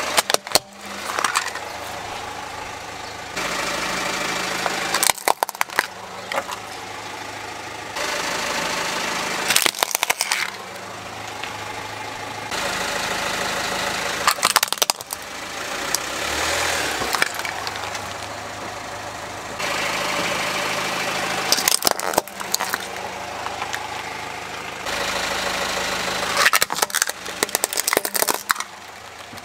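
A car's engine idling while its tyre rolls over small plastic toy vehicles one after another. Each toy gives way in a cluster of sharp cracking and snapping, about six times, a few seconds apart. The engine hum changes abruptly between crushes.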